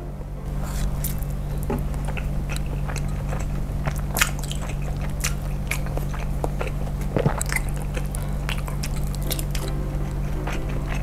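Close-miked mouth sounds of a person chewing a soft, cheese-filled meatball (bakso with melted mozzarella): many small wet clicks of the chewing, with no talking.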